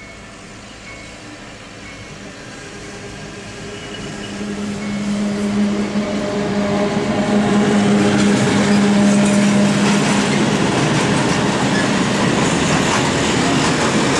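PKP ET22 six-axle electric locomotive passing close by, hauling a train of loaded open coal wagons. It grows steadily louder, with a steady hum from the locomotive through the middle, then gives way to the rolling noise and clatter of the wagons going past.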